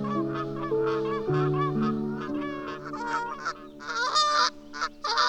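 Birds honking in quick repeated calls, several a second, with a louder, higher call near the end, over background music of slow sustained chords.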